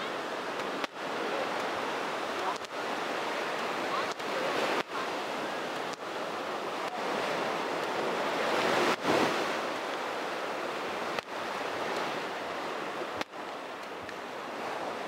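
Small surf breaking and washing up the sand at the shoreline as a steady rush of waves, swelling loudest as one wave breaks about nine seconds in.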